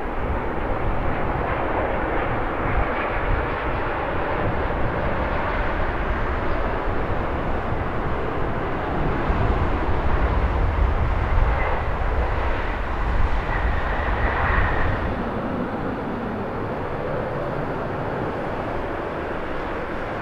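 Airbus A350-900 jet airliner landing: steady jet-engine noise with a deep rumble that is loudest about ten seconds in as it rolls down the runway, and a thin whine over it near the end of the rollout. About fifteen seconds in, this gives way to a quieter, even jet drone from a Boeing 777-300ER on approach.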